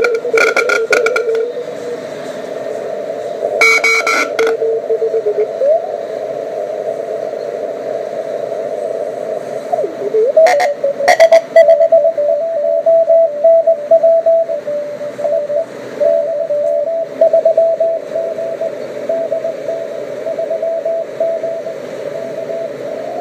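Elecraft KX3 transceiver's receiver audio: band hiss through a narrow filter, with crackles of static in the first few seconds. A whistle slides in pitch as the radio is tuned, and from about ten seconds in a steady tone keys on and off.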